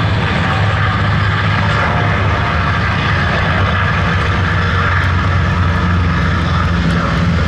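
Piston-engined Second World War fighters taking off at full power: a Republic P-47D Thunderbolt with its radial engine and two North American P-51D Mustangs with their Merlin V-12s. A loud, steady, deep propeller drone.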